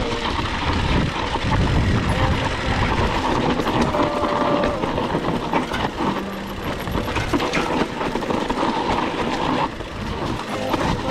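Mountain bike riding down a rough dirt trail: tyres rolling over dirt and leaves under a constant rattle and clatter of chain and frame, with many small knocks.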